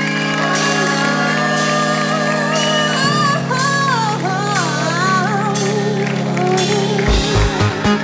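Live electronic band playing sustained synth chords while a female singer sings a wavering, melismatic line over them; a regular kick-drum beat comes in near the end.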